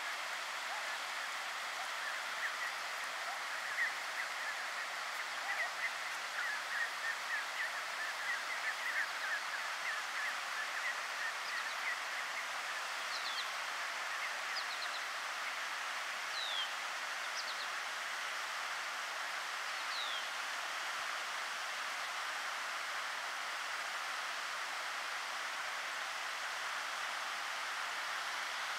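Mallard ducklings peeping, a rapid scatter of short, high calls that thin out after about twelve seconds, over a steady hiss. A few higher, falling chirps come in the middle.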